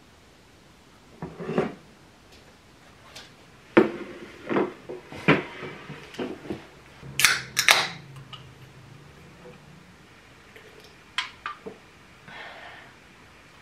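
Ceramic plate, fork and drink can being handled on a table: a string of sharp knocks and clinks of tableware, then a few lighter clicks near the end.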